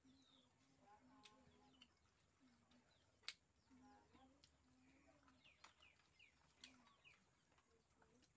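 Near silence, with faint bird chirps in the background and a low murmur that comes and goes. One sharp click about three seconds in.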